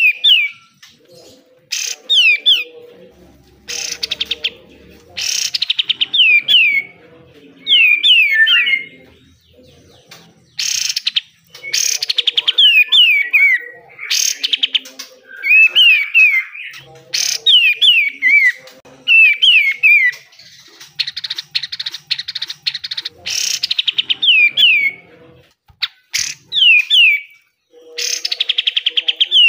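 Kapas tembak (katem) bulbul singing in its harsh 'besetan' style: rapid rattling bursts alternating with clusters of short whistled notes that slide downward, in phrases with brief pauses between them.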